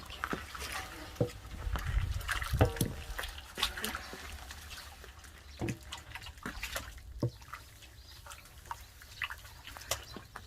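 Water dripping and splashing, with irregular small clicks and knocks.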